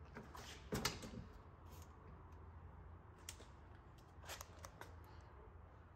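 Quiet handling sounds over a low steady hum: a few soft clicks and knocks as a 1973 Dodge Dart's passenger door is unlatched and swung open.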